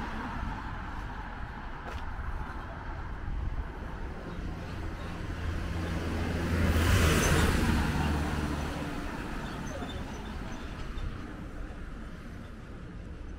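Road traffic going by, with one motor vehicle passing close about halfway through: its engine hum and tyre noise swell to a peak, then fade.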